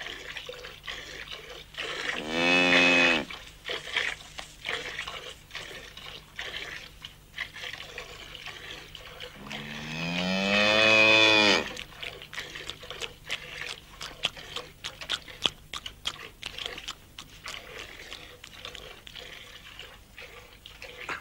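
A cow mooing twice: a short moo about two seconds in and a longer one that rises in pitch near the middle. Between and after the moos come many short spurts, milk squirting into a pail as the cow is hand-milked.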